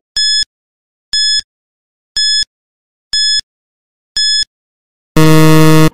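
Quiz countdown timer: five short high-pitched electronic beeps, one a second, then a louder, lower buzzer lasting under a second that marks time up.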